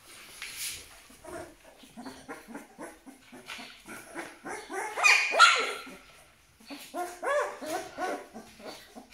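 Twelve-day-old Aksaray Malaklı puppies whimpering in a long run of short, repeated cries. The cries are loudest about five seconds in, and a second cluster follows a moment later.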